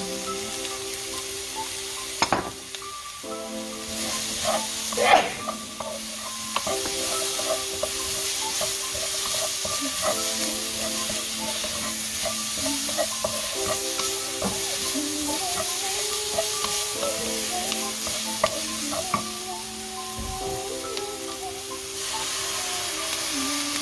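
Sliced vegetables sizzling in a hot stone-coated wok as they are stir-fried, with a wooden spatula knocking and scraping against the pan a few times.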